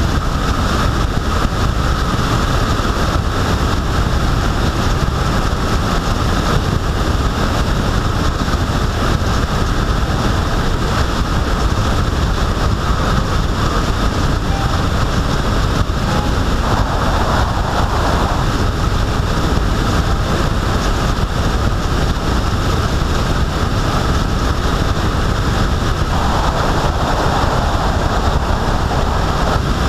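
Steady rush of wind buffeting the microphone of a moving vehicle, with road and running noise underneath and no distinct engine note. The rush swells briefly about halfway through and again near the end.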